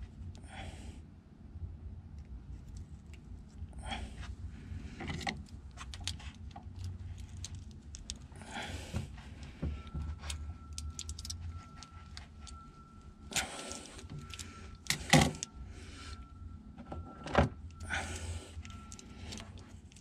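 Hands working at electrical connectors and wiring with a small hand tool: scattered rustling, small plastic and metal rattles and light clicks, with two sharp clicks about three quarters of the way through as the loudest sounds. A low steady hum runs underneath, with a faint steady high tone through the second half.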